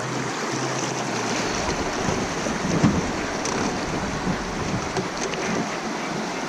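Steady rushing of river water around a drift boat running a small rapid, mixed with some wind on the microphone.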